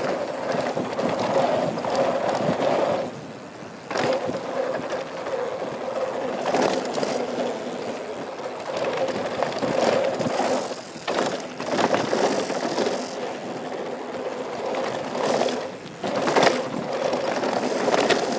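2013 Norco Truax mountain bike riding fast down a dirt jump trail: tyres rolling and rattling over the ground, with several sharp knocks from impacts. About three seconds in it goes briefly quieter, then comes back with a sharp knock, like a jump landing.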